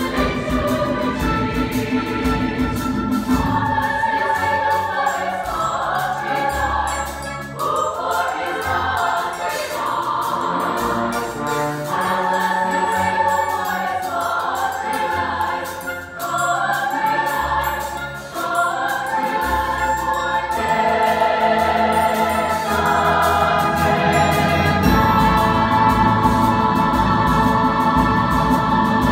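Mixed choir singing with a chamber orchestra of strings, winds and percussion. The music grows fuller and louder over the last third.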